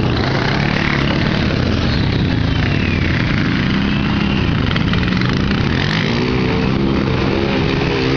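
Several ATV engines running and revving as the four-wheelers ride through shallow muddy water, their pitch rising and falling, over a steady hiss. A second, higher engine note joins about six seconds in.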